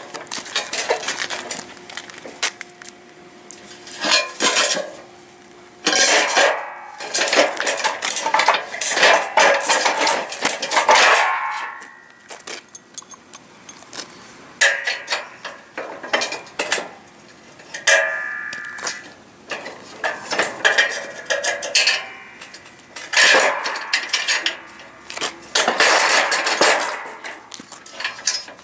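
Aluminium boat-hoist frame members clanking and rattling against each other as a column is stood upright and bolted to the bottom frame rail: repeated metal knocks with brief ringing, in several spells of clatter with short pauses between.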